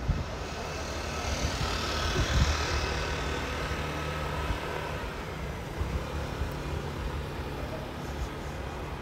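Street traffic noise, with a vehicle passing about two seconds in, its sound swelling and then fading.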